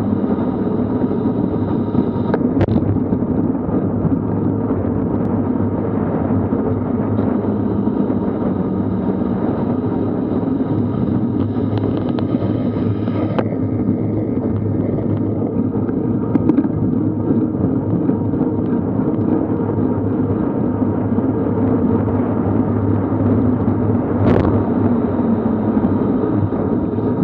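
Steady rush of wind buffeting the camera microphone, mixed with road-bike tyre noise on tarmac, during a fast road descent. A couple of brief sharp clicks cut through it, one early and one near the end.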